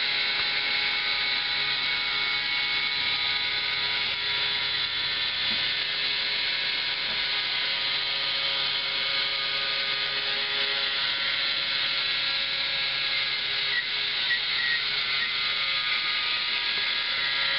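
Small electric motor driving a Meccano gear train and chain drive, running with a steady whirring whine that holds evenly throughout.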